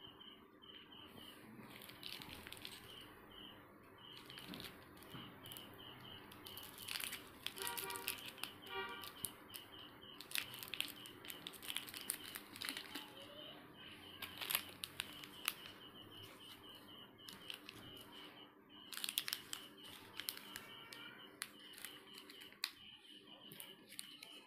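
Plastic and foil candy wrappers crinkling and crackling in the hands in irregular bursts. A steady, pulsing high chirp runs underneath.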